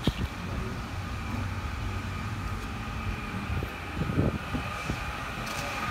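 A steady low vehicle engine hum with a faint high whine that grows a little louder near the end, broken by a few short knocks about four seconds in.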